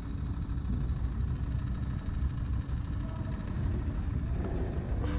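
Distant car engines heard as a steady low rumble.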